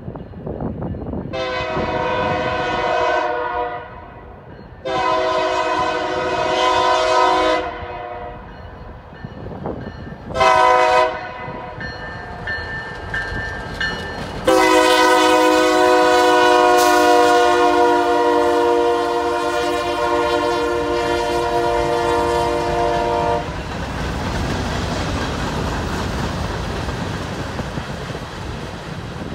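Union Pacific diesel freight locomotive's air horn sounding the grade-crossing signal: two long blasts, a short one, then a long held blast. After the horn stops, the locomotives and covered hopper cars rumble steadily past on the rails.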